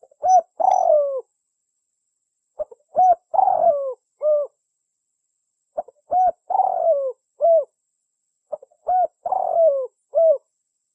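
Spotted dove cooing: four repeated call phrases about three seconds apart, each a few short coos running into a longer note that falls away at the end, as used to lure wild doves.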